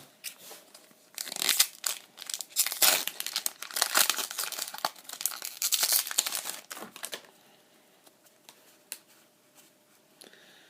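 Foil wrapper of a Pokémon trading card booster pack being torn open and crinkled, a dense crackling for about six seconds starting about a second in.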